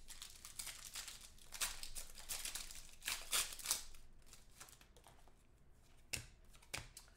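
Foil trading-card pack wrapper crinkling and tearing in the hands, in irregular rustling spurts that are loudest about three seconds in. Near the end, cards are handled, with a couple of sharp taps.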